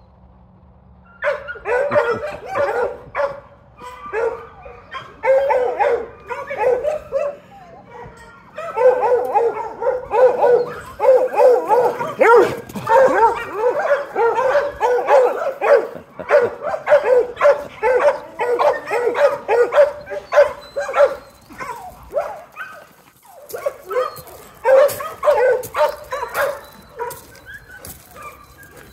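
Several dogs barking and yipping in play, in rapid, overlapping bursts that start about a second in. There is a brief pause about three-quarters of the way through.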